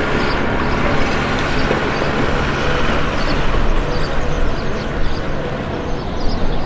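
Town street ambience: a steady wash of traffic noise with vehicle engines rumbling.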